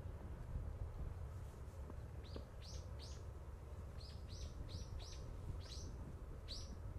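A small bird calling: about nine short, high chirps, each falling in pitch, coming in quick runs from about two seconds in. Under the calls runs a steady low rumble.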